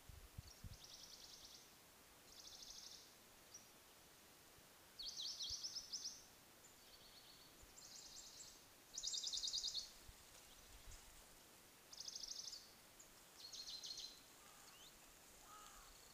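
Small birds singing in quiet open countryside: a series of about nine short, high, buzzy trills, each under a second, with a couple of short pitch slides among them.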